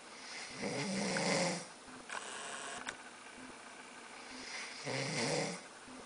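A man snoring in his sleep: two long snores about four seconds apart, with a softer breathy exhale after the first.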